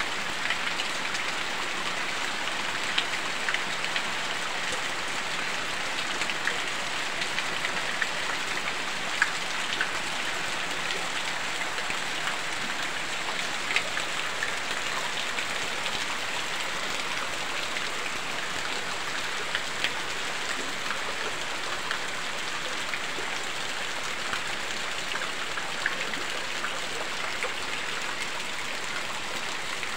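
Heavy rain falling steadily, with scattered sharp drop ticks against an even hiss of rainfall.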